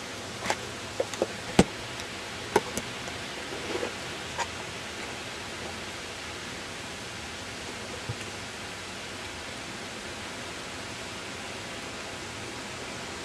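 Steady hiss of outdoor ambience during a snowstorm, with a few sharp clicks and knocks in the first five seconds and one more about eight seconds in.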